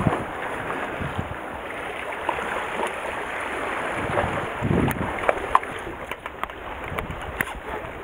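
Wind buffeting the microphone and sea water washing against concrete tetrapods, with a hooked threeline grunt splashing at the surface as it is netted. A low swell of wind or water comes about halfway through, then a run of light clicks near the end.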